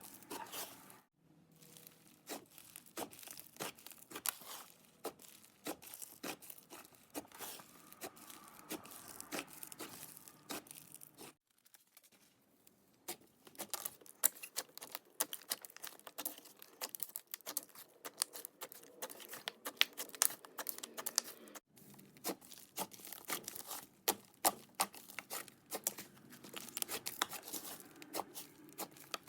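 Hands squishing, stretching and kneading clay slime: sticky, crackling pops and tearing sounds, stopping briefly three times.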